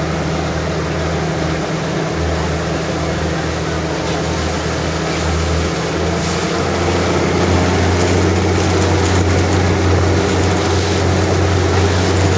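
Fishing boat's engine running under way, a steady low drone with a rush of wind and water over it. It grows a little louder about halfway through.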